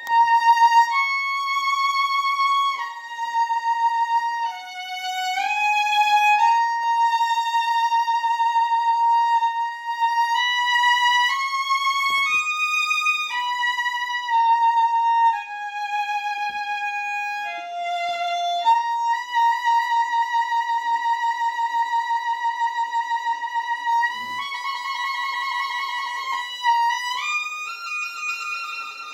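Solo violin playing a slow melody of long held notes in a high register, with vibrato on the longest notes.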